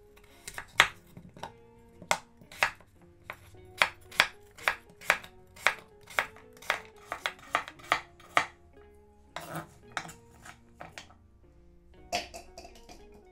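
Chef's knife chopping a peeled raw potato into small chunks on a bamboo cutting board: a sharp knock at each cut, about two or three a second, then a few looser knocks. Quiet guitar music plays underneath.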